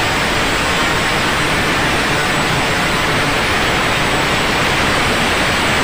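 A steady, loud rushing hiss with no distinct tones or knocks in it.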